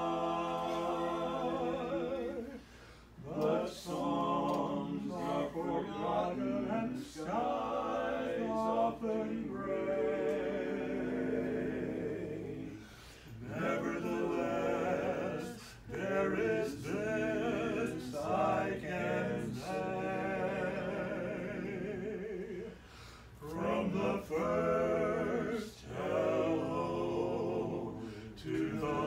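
Four-man vocal quartet singing a cappella, with long sung phrases and brief breaks between them.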